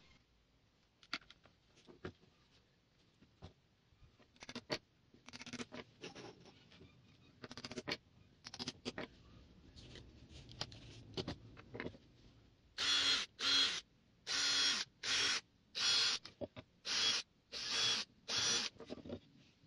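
Scattered clicks and knocks of wooden pieces and a bar clamp being handled on a workbench, then, from about 13 seconds in, a cordless drill-driver running in about seven short bursts, each the same steady pitch, as it works into the wood.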